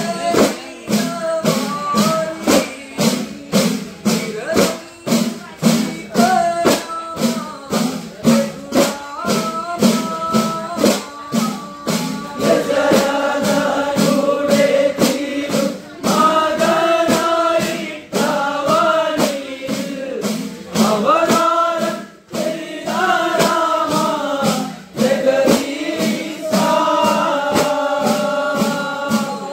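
Men singing a Malayalam kavadi chinthu devotional song, the closing mangalam, over a steady beat of udukku hourglass drums played by the singers. The singing becomes fuller, with more voices, about twelve seconds in.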